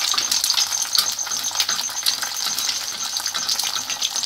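An egg frying in hot oil on a tawa, the oil sizzling and spattering in a steady stream of fine crackles.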